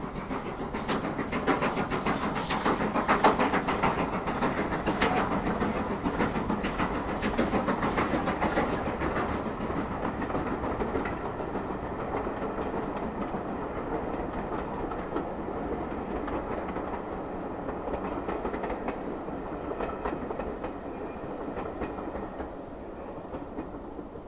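GWR King class 4-6-0 steam locomotive 6023 'King Edward II' working up a 1 in 60 gradient across a viaduct, its quick exhaust beats mixed with the clatter of the carriages. The sound is loudest in the first nine seconds or so, then turns duller and slowly fades as the train draws away.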